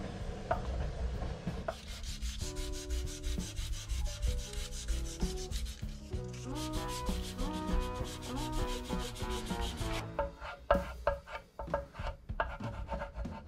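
Sandpaper rubbing back and forth on a guitar's nitrocellulose-finished body, wearing the lacquer through to the wood, in quick strokes several a second. The strokes turn sharper and louder near the end.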